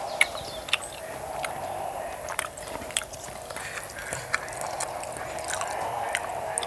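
Close-miked eating: wet chewing and mouth smacks, with scattered sharp clicks as fingers scoop rice and pounded cassava leaves from an enamel plate.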